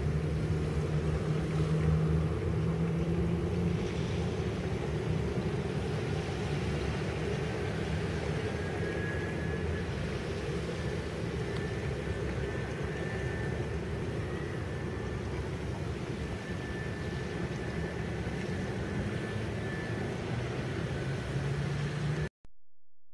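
Distant twin-turboprop Beechcraft B200 King Air droning steadily as it climbs away on a missed approach, under a steady rushing background noise, with a faint high whine in the second half. The sound cuts off suddenly near the end.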